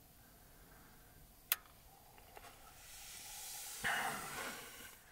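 Quiet car interior at night: a single sharp click about a second and a half in, typical of a light switch being turned off, then a soft rushing noise that swells and fades over the last two seconds.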